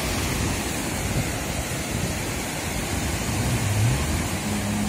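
Breaking surf with wind buffeting the microphone. Near the end a Yamaha WaveRunner jet ski's engine revs up, a low rising tone that then holds steady.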